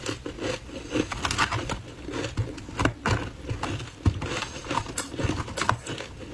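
Mouth chewing and crunching frozen ice balls coated in matcha powder: a dense run of irregular crackling crunches. A metal spoon scrapes and scoops in the plastic box.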